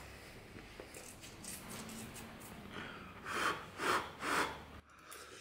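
Close mouth and breath sounds of a man eating: three loud, short breathy huffs about half a second apart, a little past the middle.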